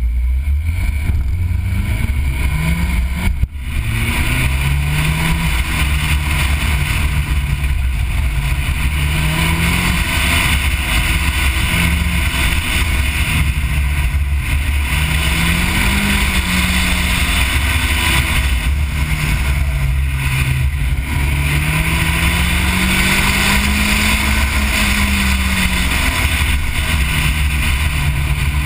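Mazdaspeed 3's turbocharged 2.3-litre four-cylinder engine working hard through an autocross course, its revs climbing and dropping over and over between the cones, with a brief dip about three and a half seconds in. A heavy low rumble of wind and road noise runs under it.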